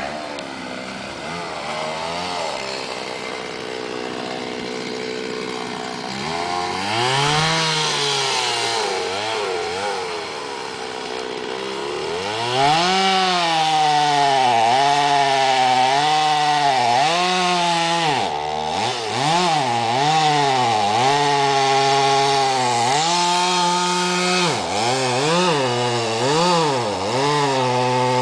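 Stihl MS 310 two-stroke chainsaw running at a steady lower speed, then revving up about six seconds in. From about twelve seconds in it runs louder, cutting into an oak trunk, its pitch repeatedly dipping and recovering as the chain loads up in the cut.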